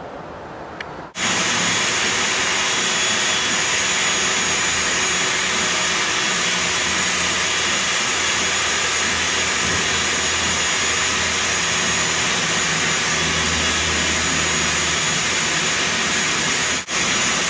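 Vacuum motor running steadily, with a high whine over rushing air. It starts abruptly about a second in and drops out for a moment near the end.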